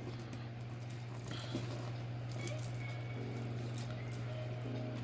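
Faint rustling and light clicks of small jewelry pieces being handled and sorted, over a steady low hum.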